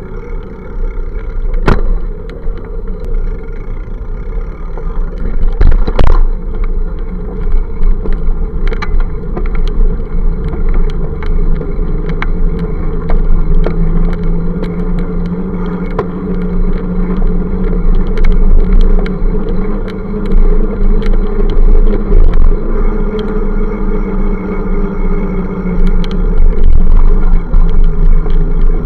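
Road traffic passing on a busy avenue, heard from a moving bicycle: a steady heavy rumble of wind and road noise on the camera's microphone, engines passing alongside, and scattered sharp knocks.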